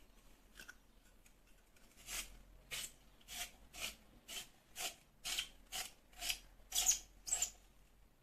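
Handheld spiralizer cutting a zucchini into noodles: a short rasping cut with each twist of the vegetable. The cuts come about two a second from about two seconds in and grow louder toward the end.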